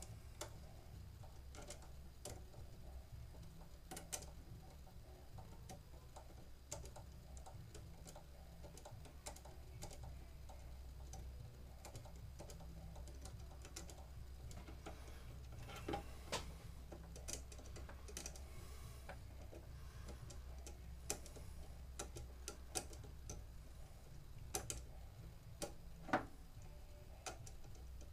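Scattered faint clicks and ticks from an NEC PA500U projector's iris assembly being worked by hand, its small gear stiff and getting stuck. The sharpest clicks come about halfway through and near the end, over a low steady hum.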